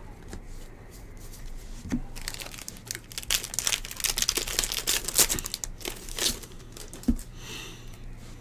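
Foil wrapper of a 2022 Bowman Baseball jumbo pack crinkling and tearing as it is ripped open by hand. The crinkling is loudest from about two to six and a half seconds in, and there is a soft knock near the end.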